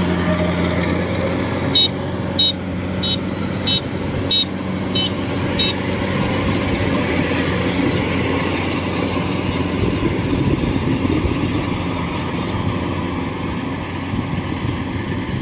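Kubota DC-105X rice combine harvester's diesel engine and threshing gear running steadily under load as it cuts rice, a constant machine hum. About two seconds in, seven short high-pitched beeps sound in an even series over roughly four seconds.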